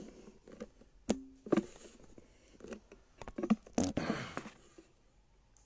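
Handling noise from a phone being moved and repositioned while it records: scattered knocks, rubs and scrapes, loudest about four seconds in, with a short low tone about a second in.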